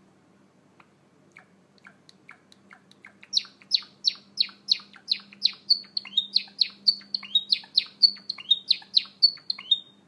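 Male Java sparrow singing: faint clicks that build, about three seconds in, into a loud, quick series of chirps and bell-like notes, roughly three a second.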